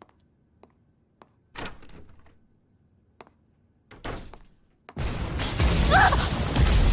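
Sound effects from an animated fight: a few light taps, two heavy thuds, then from about five seconds in a loud crash that carries on as a rumbling din of shattering debris.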